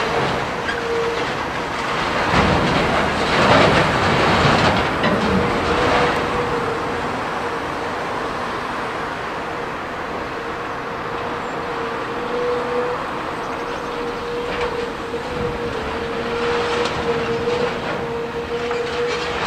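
CAT 330F crawler excavator running under load with a steady whine. Its sorting grapple handles demolition rubble and scrap over a container, which rattles and clatters. The clatter is loudest a few seconds in, with scattered knocks later.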